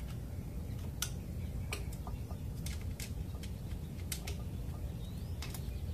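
Scattered light metallic clicks, about eight of them at uneven spacing, from a hex key working the clamp bolts of a bicycle handlebar stem riser as they are slowly tightened, over a steady low background rumble.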